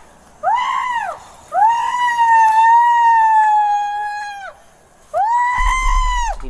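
A woman screaming: three long, high shrieks, the middle one held for about three seconds.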